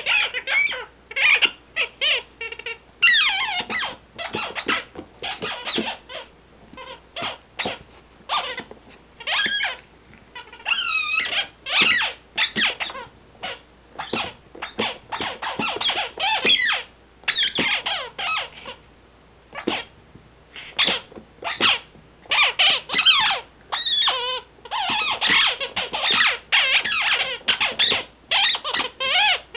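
A super-squeaky chicken dog toy squeaking again and again in irregular bursts of high, wavering squeals as a small dog bats at it, with short pauses between bursts.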